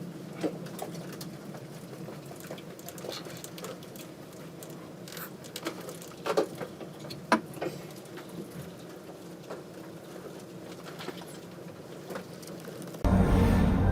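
Scattered light taps and clicks, irregular and a second or so apart, over a steady low hum. About thirteen seconds in, this gives way abruptly to much louder, steady rumbling noise.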